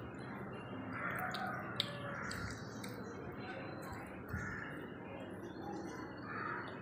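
Quiet background with a few faint bird chirps and a small click.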